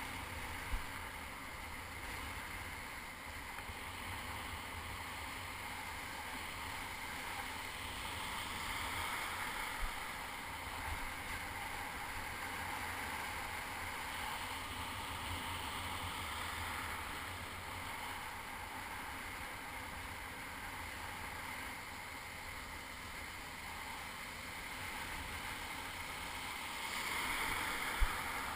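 Shallow surf washing and rushing around a camera at water level, with wind rumbling on the microphone. The wash swells now and then, and a few sharp knocks come through, the loudest near the end.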